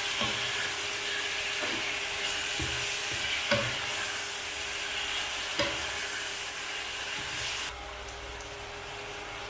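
Pork belly pieces sizzling in hot oil and browned sugar in a wok, stirred with a wooden spatula that scrapes and knocks against the pan a few times. The sizzle drops abruptly near the end.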